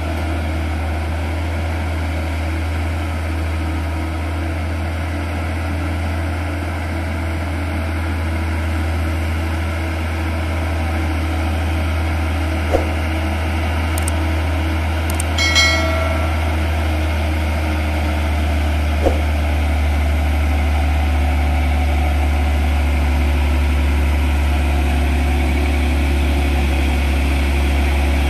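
Loaded Hino 500 diesel dump truck labouring up a steep hairpin climb, its engine giving a steady low drone that slowly grows louder as the truck approaches. A short sharper sound stands out about halfway through.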